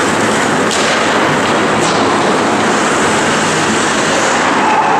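Steady, loud noise of ice hockey play in a rink: skates scraping the ice and the hall's echo, with two short sharp knocks about a second apart near the start.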